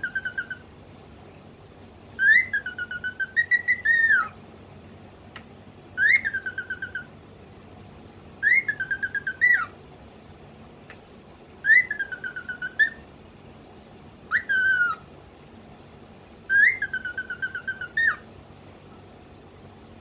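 Cockatiel whistling the same short phrase over and over, about every two to three seconds: a quick rising note, then a lower note broken into rapid stutters for about a second.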